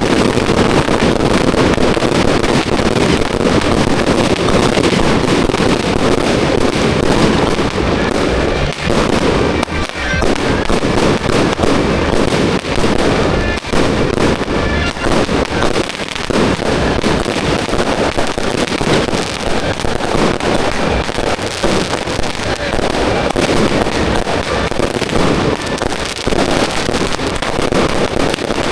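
Strings of firecrackers going off at close range in a dense, continuous crackle of rapid bangs with hardly a break.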